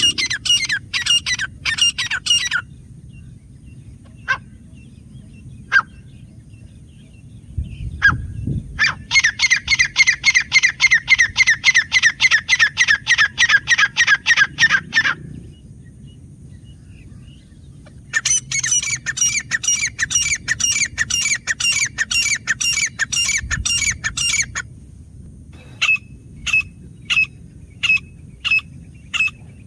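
Grey francolin calling: loud, sharp, high-pitched notes repeated fast, about five a second, in runs lasting several seconds. These runs are broken by pauses with a few single notes, and near the end come evenly spaced notes about one and a half seconds apart.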